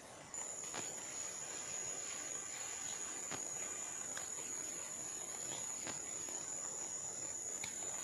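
Insect singing: one steady, high-pitched buzzing note that starts suddenly just after the beginning and cuts off abruptly at the end, with a few faint clicks beneath it.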